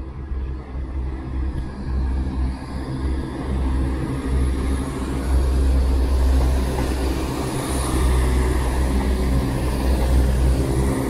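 ScotRail Class 170 Turbostar diesel multiple unit, coupled to a Class 158, pulling out past at low speed. Its underfloor diesel engines give a steady deep rumble, with a thin high whine swelling and fading around the middle.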